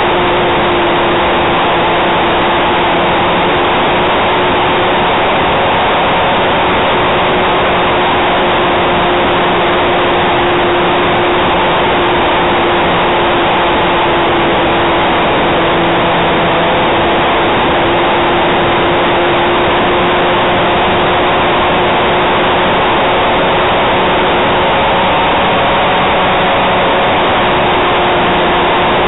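RC model Cessna 400 Corvalis in flight: its motor and propeller run at a steady pitch under a loud, even rush of wind noise on the onboard camera's small microphone.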